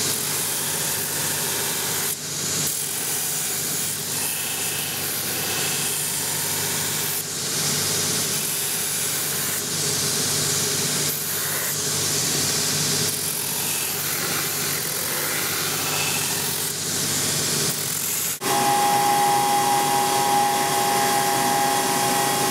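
Cobbler's finishing machine: a spinning sanding wheel grinding the edge of a new leather sole, a steady abrasive hiss that changes in spells as the shoe is worked against it. About eighteen seconds in it gives way suddenly to the steady whine of the machine's edge-trimming cutter.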